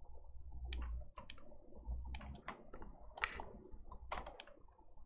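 Computer mouse clicking: a run of short, sharp clicks at irregular intervals over a faint low hum.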